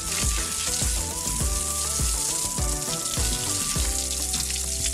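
Water spraying in a fine jet from a toy hose nozzle: a steady hiss that starts at once, over light background music.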